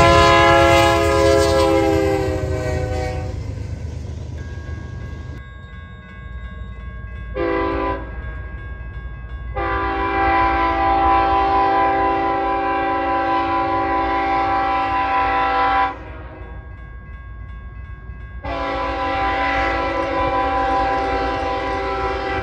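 Freight diesel locomotive air horns. A passing BNSF locomotive's horn chord drops slightly in pitch and fades over the first three seconds. Then a farther-off train's horn sounds a short blast, a long blast of about six seconds, and another long blast near the end, over a steady low rumble.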